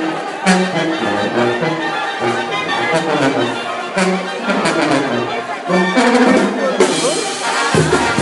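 Live Mexican brass band music: a tuba pumping a regular bass line under trumpets and other brass, with crowd voices mixed in.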